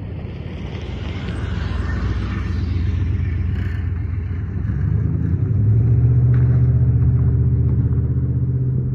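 Diesel engines of an approaching Loram rail grinder, a low rumble that grows louder, settling into a steady engine drone about halfway through. A hiss swells and fades in the first few seconds.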